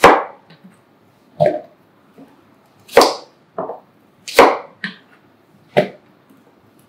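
Kitchen knife chopping peeled apple on a cutting board: about seven sharp knocks of the blade through the fruit onto the board, roughly one a second, two of them in quick pairs.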